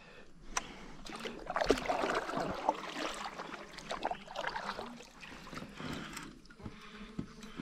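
Water splashing and swirling close to a fishing kayak where a hooked arapaima (pirarucu) is fighting near the surface, with scattered small knocks and clicks.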